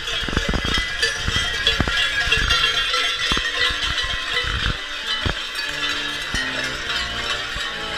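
Many large cowbells worn by running Klausen jangle and clang without a break, mixed with sharp knocks and thuds. From about halfway in, held organ notes come in underneath.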